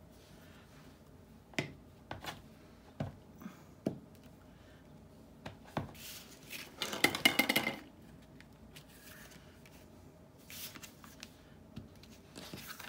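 Light clicks and knocks of a clear acrylic stamp block and craft supplies being handled on a hard cutting mat, with a short burst of rapid tapping about halfway through as the stamp is dabbed onto an ink pad.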